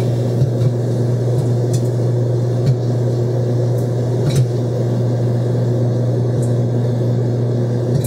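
Microwave oven running with a steady hum while popcorn kernels in a silicone microwave popper begin to pop: a handful of scattered, sparse pops, the start of popping.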